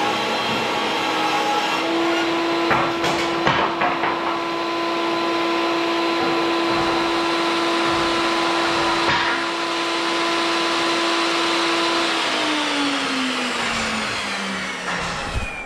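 An electric motor, such as a power tool or shop vacuum, runs at a steady high pitch, then is switched off about twelve seconds in and winds down, its pitch falling. A few knocks come around three to four seconds in and again near nine seconds.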